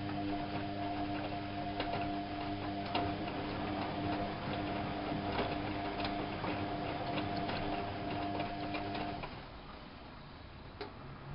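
Whirlpool AWO 5346 washing machine running: a steady motor hum with scattered clicks, which stops about nine seconds in, followed by one click near the end.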